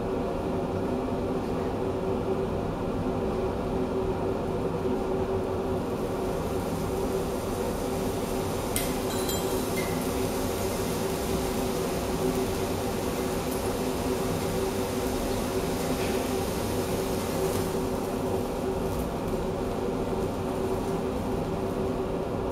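A steady fan-like hum throughout. Over it, a molybdenum oxide thermite mix with aluminium and magnesium powder burns in a crucible: a hiss swells from about six seconds in, with a cluster of sharp crackles around nine seconds and a few more later, and fades out by about eighteen seconds.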